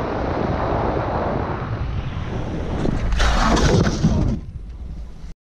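Steady wind and road noise as a small motorbike rides. About three seconds in comes a loud crash, lasting about a second, as the bike goes down onto the road; then it falls much quieter.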